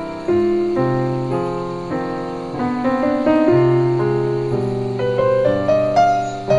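Background piano music, a melody over chords with notes changing every half second or so.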